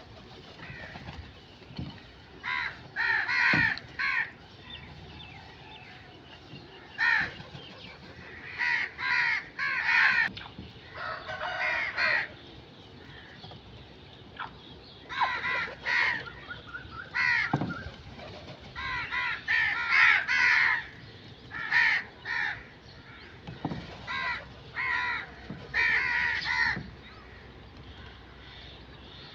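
Crows cawing: harsh calls in short runs of two to four, with pauses of a second or more between runs.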